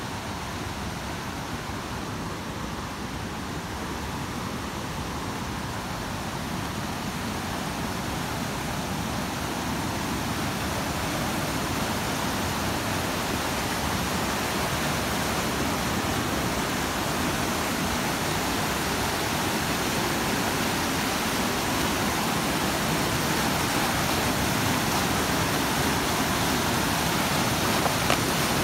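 Rushing water, a steady hiss that grows louder over the first ten seconds or so and then holds.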